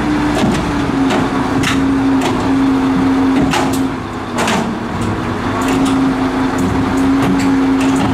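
A recovery crane's engine running steadily with a held drone while it works its hook cable, dipping briefly about halfway through. Scattered sharp knocks and clanks sound over it.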